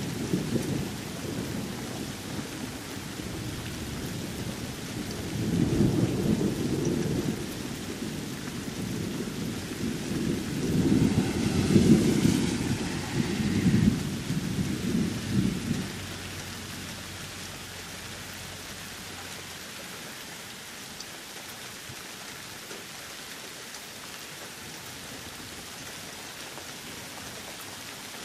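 Thunderstorm: steady rain with rolling thunder. A rumble comes about five seconds in and a longer, louder one rolls from about ten to sixteen seconds, then only the rain goes on.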